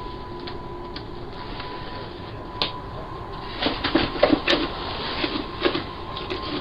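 Tinny doorbell-camera audio: a steady high hum under a run of irregular clicks and knocks, thickest about halfway through.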